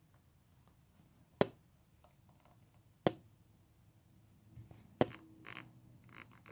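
Three sharp clicks about two seconds apart over a quiet background, followed by faint rustling near the end.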